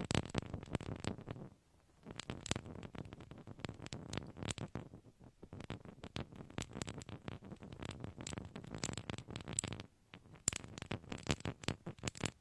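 A nail file scratched in rapid strokes close to a binaural microphone, with two brief pauses.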